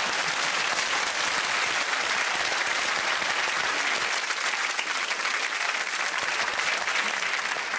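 Studio audience applauding, a dense steady clapping.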